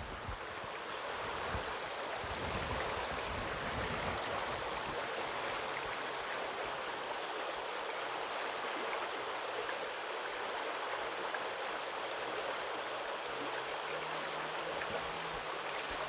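Shallow stream flowing over rocks and stones: a steady water noise.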